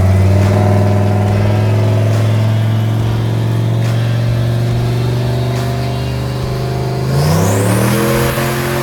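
Turbocharged 6.0-litre Chevy V8 truck engine running on a chassis dyno, holding steady revs for several seconds. About seven seconds in the revs climb, and a high whistle rises with them as the turbo spools.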